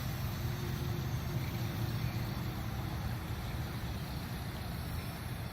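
Steady hum of a Parrot Anafi quadcopter's motors and propellers in flight, over a low rumble.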